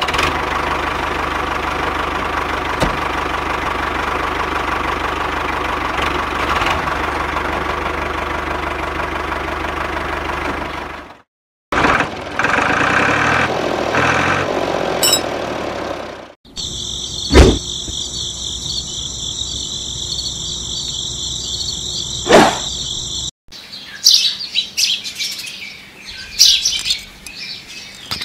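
Small electric motor running steadily for about eleven seconds. After a break comes a steady high-pitched buzz with two sharp clicks, then birds chirping near the end.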